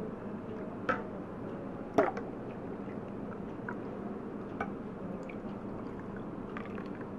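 A green powder drink poured in a stream back and forth between a stainless steel mug and a drinking glass to mix the powders in, a steady liquid pouring sound. Two sharp knocks about a second apart come near the start.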